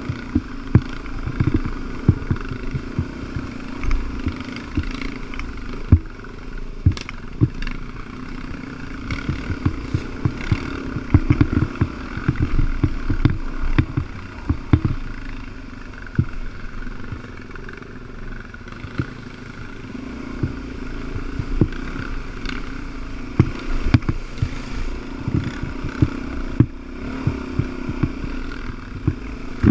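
Dirt bike engine running steadily at trail speed, with frequent sharp knocks and rattles as the bike rides over a bumpy dirt trail.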